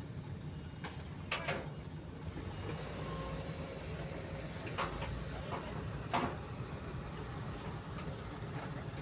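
Kobelco SK130 excavator's diesel engine running with a steady low rumble, broken by a few sharp knocks: two close together about one and a half seconds in, another near the middle, and the loudest about six seconds in.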